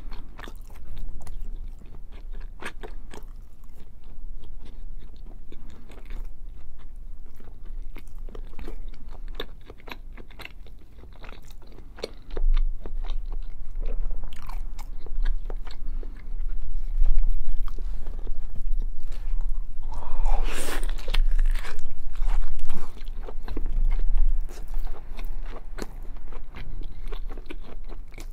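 Close-miked chewing and biting of hot pepper cheese, with many sharp wet mouth clicks. From about twelve seconds in there is a low rumble under the chewing, and a brief louder wet noise comes about twenty seconds in.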